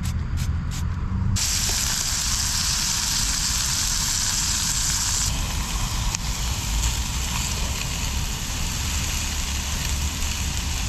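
Food sizzling as it hits a hot pan on a gas camping stove: a loud hiss starts suddenly about a second and a half in and softens after about five seconds. A steady low traffic rumble runs underneath, with a few clicks just before the sizzle starts.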